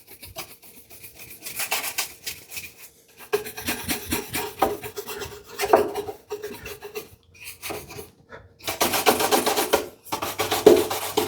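Bristles of a shoe brush scrubbing back and forth over a wooden surface finished with shellac and paste wax, buffing the wax to a sheen. The strokes come in a series of brisk passes with short pauses between them.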